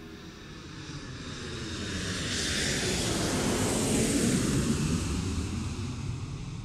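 Logo sound effect: a rushing whoosh with a low rumble that swells for about four seconds, then fades away.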